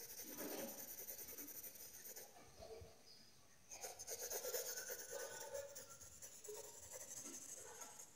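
Pencil scratching on paper in quick, repeated shading strokes. It stops for about a second and a half after two seconds in, then starts again.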